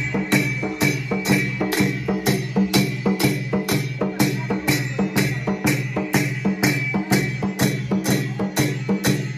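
A double-headed barrel drum beaten in a steady, even rhythm, nearly three sharp strokes a second, over a sustained pitched melody of festive folk music.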